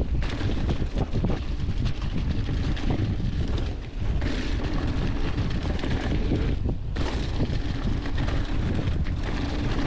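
Wind buffeting the camera microphone as a mountain bike rolls quickly downhill. The tyres crackle through dry fallen leaves and the bike rattles over the trail.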